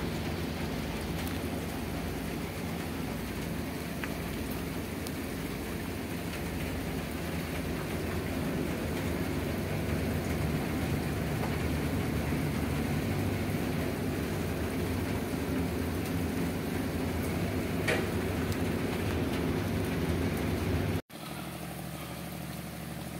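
Rain falling on the sea over the steady hum of a ship's engine running. About three-quarters through, it cuts off suddenly to a quieter steady engine hum.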